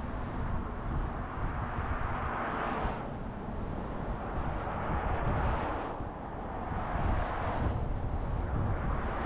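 Road traffic noise: vehicles going by, rising and falling every two or three seconds over a steady low rumble.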